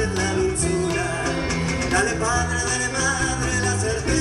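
Live band playing a Latin American folk-style song: acoustic guitar, soprano saxophone and cajón, with a steady beat and a moving melody line.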